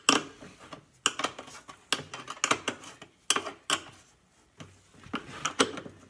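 Irregular knocks and rattles, about eight in all, from hands working at a snowblower's open fuel tank while it is being drained and rinsed out.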